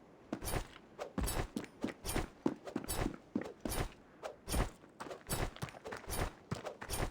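A rapid, irregular series of knocks and thumps, about three a second.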